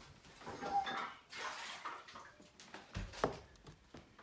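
A metal baking sheet being carried and handled, with small clatters and knocks, set down on a table with a thud about three seconds in.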